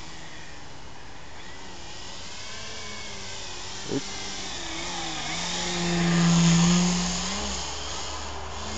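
Skywing MXS radio-controlled aerobatic plane's motor and propeller running, the pitch rising and falling with the throttle as it hovers and manoeuvres, swelling loudest about six seconds in.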